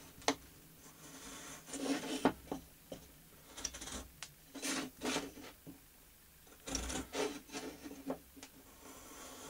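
A homemade marking gauge is drawn along the edge of a wooden board, its cutter, ground from a screwdriver bit, scoring a line in the wood. It makes about five short scraping strokes with a few light knocks of the gauge against the board in between.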